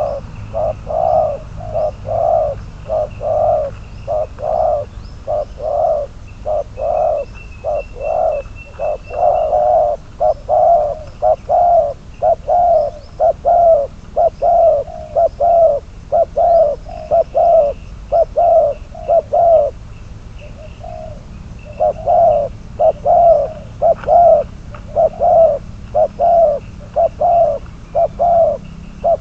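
Spotted dove cooing over and over in repeated phrases of low notes, with a short pause about two-thirds of the way through. Small birds chirp faintly behind it.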